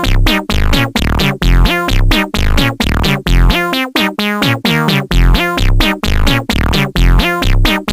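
Electronic background music with a synthesizer and a steady beat.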